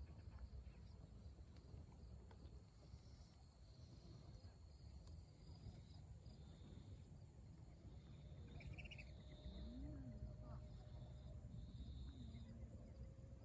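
Near silence by a river at dusk: a faint low rumble, with short faint high insect calls repeating and a brief bird call about nine seconds in.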